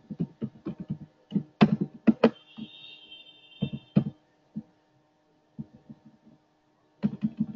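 Computer keyboard keys being typed, a run of separate irregular clicks with a short pause partway through, over a faint steady hum.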